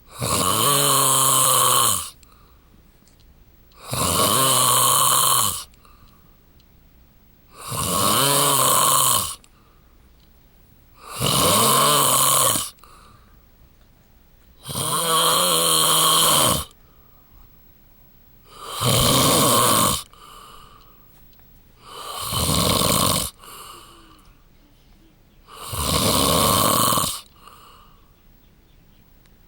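A man snoring loudly in his sleep: eight long, buzzing snores, one about every three and a half seconds, with quiet breaths in between.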